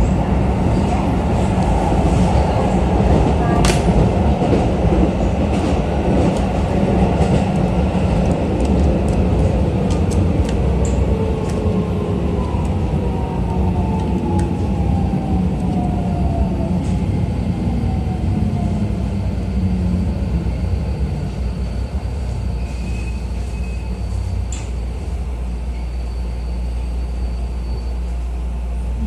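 Keisei New 3000 series electric train running, heard from inside the passenger car: a steady rumble of wheels on rail, with the motor whine gliding steadily down in pitch as the train slows for a station. A sharp click sounds a few seconds in.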